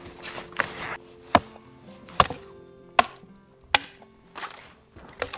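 Hand hatchet chopping into a slender tree trunk: a steady series of sharp, separate chops, about one every second.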